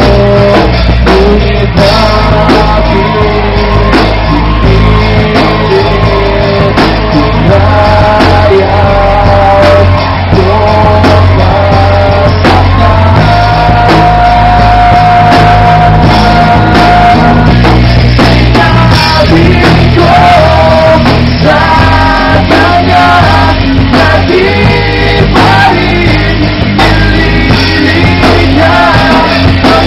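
A rock band playing live: a male singer on a microphone over electric guitars, bass and drums.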